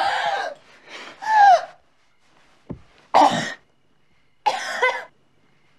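A woman gasping and coughing in separate loud bursts, about five over a few seconds, as she is jolted out of an overdose by an adrenaline injection straight to the heart.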